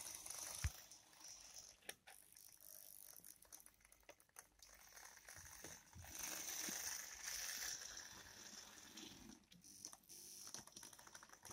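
Faint running of the motor bogie of an old Piko BR 130 HO-scale locomotive model rolling along the track: its small electric motor drives the axles through worm gears with the light rattle typical of old Piko mechanisms. It is a little louder for a couple of seconds past the middle.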